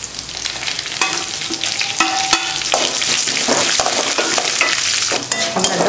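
Tempering sizzling in hot oil in a metal kadai: chana dal, urad dal, dried red chillies and curry leaves frying while a spatula stirs and scrapes through them. The sizzle grows stronger about halfway through.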